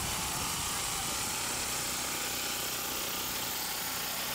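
Steady mechanical hum with a continuous hiss.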